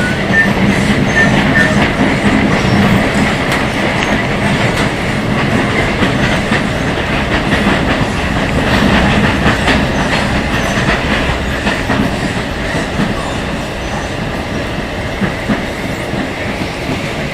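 Rio Metro Line 2 train running between stations, heard from inside the car: wheels clicking over the rail joints over a steady rumble, with the traction motors growling. It gets a little quieter over the last few seconds.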